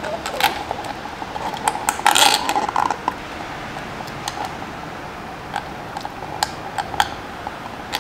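A drink sipped through a straw from a plastic cup, with a slurp about two seconds in and scattered small clicks of the cup and straw being handled, over a steady room hum.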